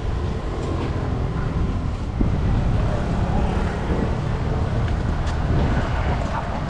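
Street ambience: a steady low rumble of road traffic mixed with wind buffeting the microphone.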